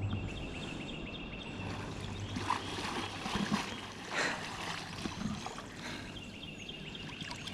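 Water sloshing and splashing around the legs of a person wading in chest waders through a shallow river, with scattered splashes in the middle stretch. A high ticking trill sounds at the start and again near the end.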